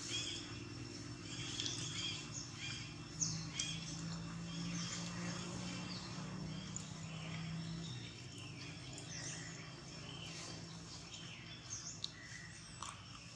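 Several birds chirping and calling, many short quick notes sliding up and down in pitch. Under them a low steady hum runs until it fades out about eight seconds in.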